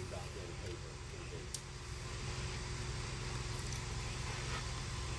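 Steady low mechanical hum with a faint steady tone above it, and a single faint click about one and a half seconds in.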